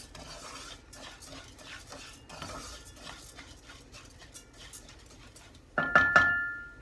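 Uncooked rice grains being stirred and scraped around a pan with a wooden spatula as they toast, a soft rustling scrape. Near the end comes a short, louder high-pitched cry.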